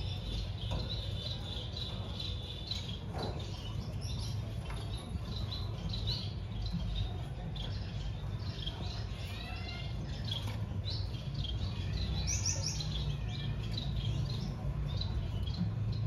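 Finches chirping: many short, high peeps and tweets, with a few quick sweeping notes around nine to ten seconds in and a brighter call about twelve seconds in.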